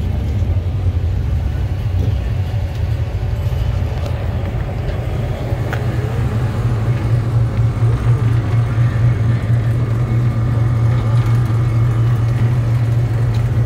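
A car engine running at a steady idle, a continuous low rumble that grows a little louder about halfway through.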